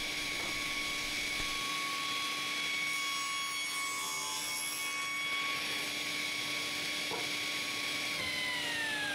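Table saw running at speed with a steady whine, its blade taking a shallow pass through a pine door-frame piece in the middle to widen a groove by 1 mm for a rubber seal. About eight seconds in the saw is switched off and the whine falls steadily in pitch as the blade spins down.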